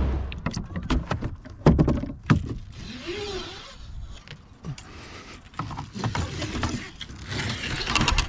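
Irregular clicks and knocks of gear being handled, loudest around two seconds in.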